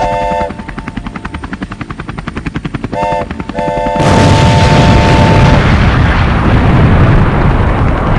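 A locomotive air horn sounds a chord, then a helicopter rotor chops fast and evenly for a couple of seconds. The horn blows again, and about four seconds in a loud explosion sets off a heavy rumble that lasts the rest of the time.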